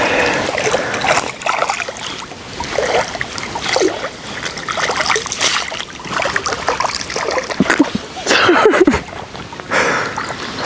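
Water splashing and sloshing in irregular bursts as a landing net is worked through the water after a hooked eel, loudest about eight seconds in.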